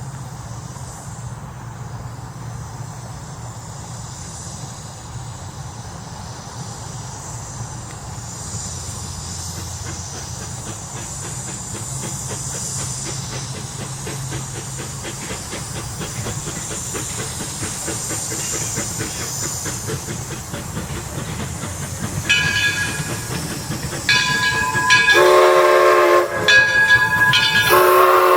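Edison 4-4-0 steam locomotive running with a steady hiss and low rumble and rapid clicking. Its Michigan Central six-chime steam whistle sounds a couple of short toots about 22 seconds in, then a long loud blast and another starting near the end.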